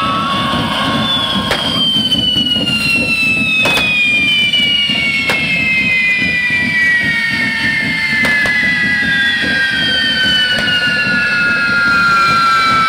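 Fire-devil pyrotechnics: several whistling fireworks burning at once, their whistles falling slowly in pitch over many seconds, over a steady rushing hiss, with a few sharp cracks.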